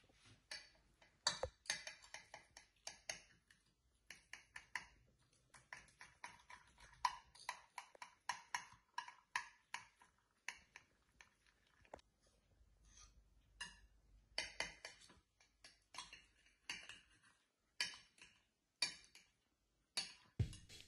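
Knife and fork cutting through a browned, crisp pasta frittata on a ceramic plate: a quick, irregular run of small clicks, taps and scrapes of metal on the plate and crunching crust, easing off for a couple of seconds midway.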